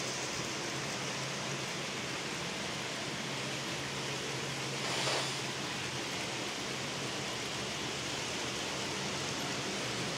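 N-scale model trains running on the layout, heard as a steady, even rushing noise with a faint low hum. It swells briefly about five seconds in.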